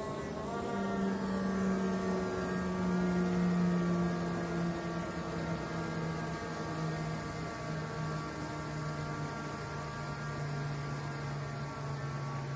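Skydio 2 quadcopter's propellers humming in flight, a steady buzz whose pitch slowly sinks as the drone flies backward.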